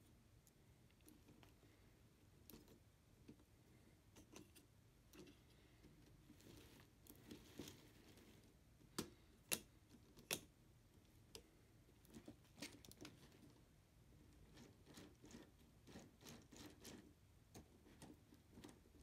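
Quiet, with scattered light plastic clicks and taps from LEGO Technic parts being handled as the model car's doors, hood and rear deck are opened and closed and the car is turned over. A few sharper clicks come about halfway through.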